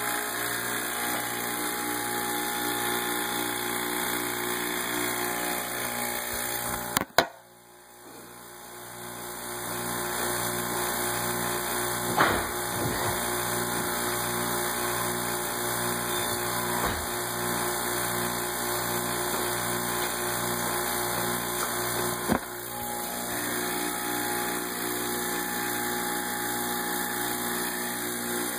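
Vacuum pump running steadily with a constant mechanical hum. About seven seconds in, a sharp click is followed by the sound dropping away and building back up over a few seconds, and two shorter knocks come later.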